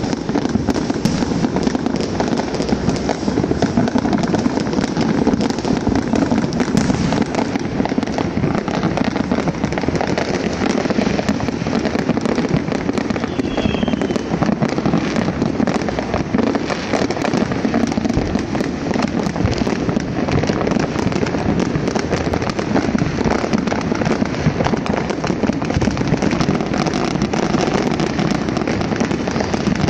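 Many fireworks and firecrackers going off at once: a dense, unbroken crackle and popping with no pause.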